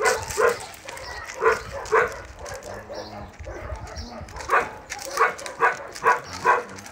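Dogs yipping in play, short high barks: four in the first two seconds, then a quick run of five after a short pause.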